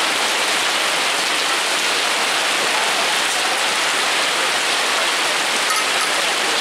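Heavy rain pouring steadily onto a pond's water surface, a dense even hiss of splashing drops.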